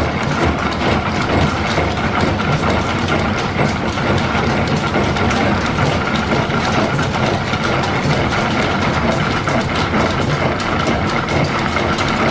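Line-shaft-driven Brown & Sharpe milling machine cutting gear teeth with a disc gear cutter: a steady mechanical clatter with a faint steady whine.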